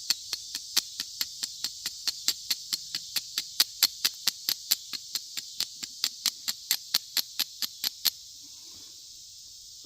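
Flint and steel struck over and over in a quick, even rhythm of sharp clicks, about three to four a second, throwing sparks at char cloth; the striking stops abruptly about eight seconds in. Insects chirp steadily underneath.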